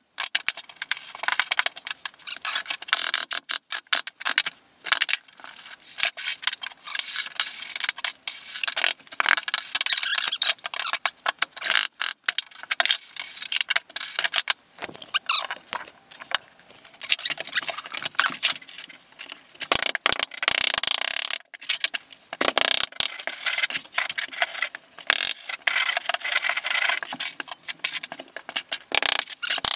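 Hand trowel and float scraping and rubbing over freshly packed deck mud, a sand and Portland cement mix, as a shower floor mud bed is screeded and smoothed, in repeated irregular gritty strokes with an occasional click of tool on tool.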